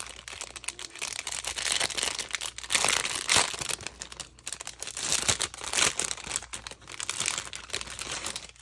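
Clear plastic cellophane sleeve crinkling and crackling irregularly as hands open it and slide out a paper tag flip, loudest about three seconds in.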